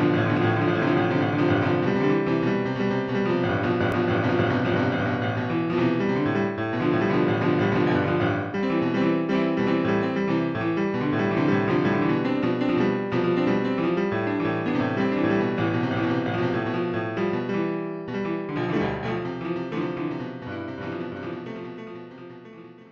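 Background piano music, steady with many sustained chords, fading out near the end.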